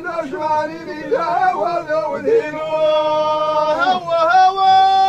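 A man singing unaccompanied in the Middle Atlas Amazigh inshaden style: a wordless, wavering, ornamented phrase that settles into two long held notes in the second half.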